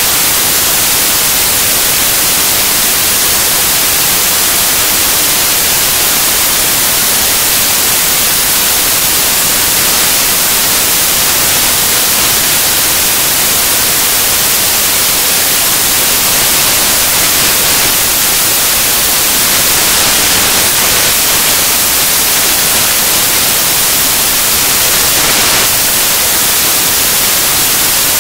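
Steady, loud hiss like static or white noise, high and even, with nothing else standing out from it.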